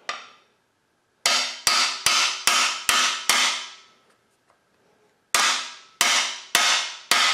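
A hammer strikes a cam bearing installer bar, driving a cam bearing into the cam bore of a Gen 4 LS engine block. There are six metallic blows at about two or three a second, each ringing and fading, then a pause of about two seconds, then five more.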